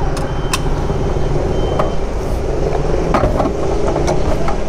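Scooter riding through city traffic: its small engine runs steadily under way, over a continuous rumble of road and traffic noise.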